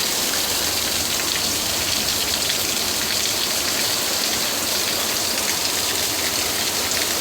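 Heavy rain pouring down steadily, a dense, even hiss of drops hitting the ground and nearby surfaces.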